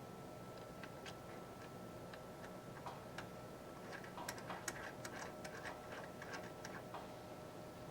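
Faint, irregular metal clicks and ticks as the reducing nut is threaded back onto the bottom of a gas chromatograph inlet and tightened with a wrench. The clicks come thicker from about four seconds in to about seven seconds in, over a steady faint hum.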